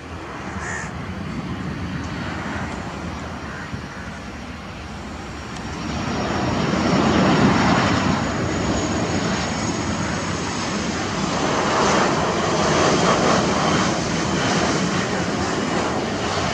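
Boeing 737-800 airliner's CFM56 jet engines on final approach and landing: a steady whooshing jet noise that grows clearly louder about six seconds in as the plane comes close, and stays loud as it reaches the runway.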